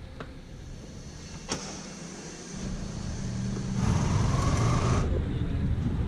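Sport motorcycle engine starting about two and a half seconds in and running steadily, louder for about a second near the end, after a single click about one and a half seconds in.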